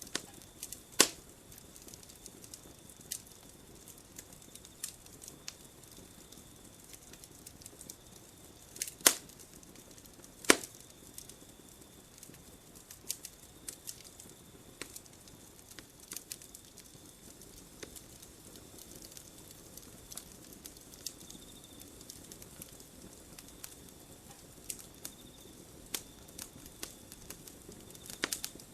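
Campfire wood crackling and popping at irregular intervals. Three loud, sharp pops stand out: one about a second in and two around nine and ten and a half seconds in.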